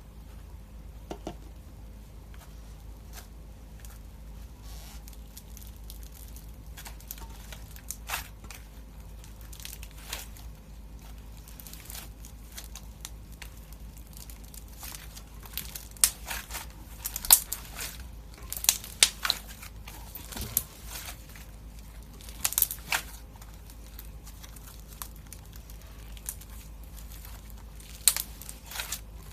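Crunchy slime crackling and crunching as it is squeezed, in scattered bursts that come thickest in the middle of the stretch and again near the end.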